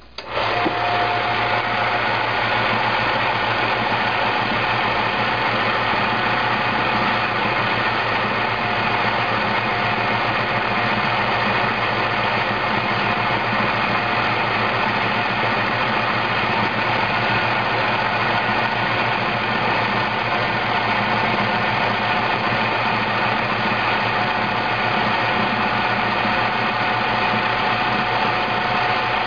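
Froth Au Lait automatic milk frother switched on, its motor starting abruptly and then running steadily as it whisks milk into foam.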